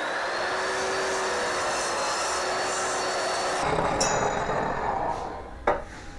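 An electric power tool running steadily against walnut wood, with a click past halfway and a single sharp knock near the end as it stops.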